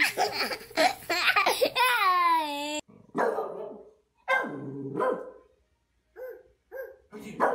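A small child laughing hard, ending in a long falling squeal. Then a dog barking and yowling in several separate calls, some drawn out and some short.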